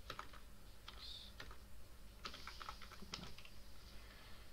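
Typing on a computer keyboard: irregular, scattered keystrokes.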